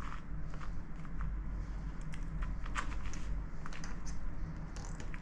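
A large sail needle is pulled through the sailcloth with pliers, making scattered light clicks and rustles as the waxed twine is drawn after it. Under them runs a steady low hum.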